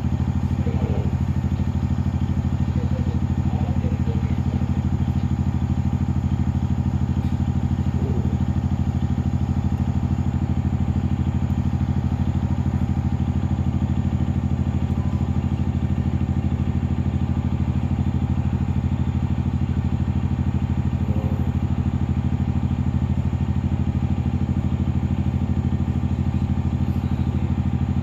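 A boat engine running steadily at an even, unchanging speed, a low hum of constant pitch.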